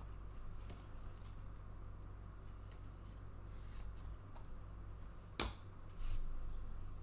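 Trading cards being handled and slid in the hands, with faint rustles and a single sharp click about five seconds in, over a steady low hum.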